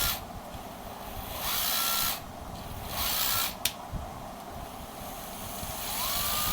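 Cordless drill motor run up in short trigger pulls, about three times. Each pull gives a whine that rises in pitch, holds briefly and cuts off. A sharp click comes about three and a half seconds in.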